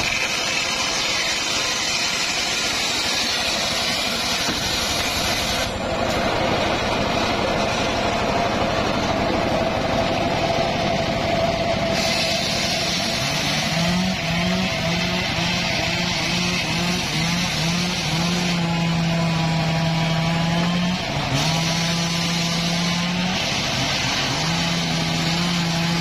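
Homemade table circular saw running steadily through teak timber, a constant whine over broad sawing noise. From about halfway a low pitched tone comes in, broken into short repeated notes, over the continuing noise.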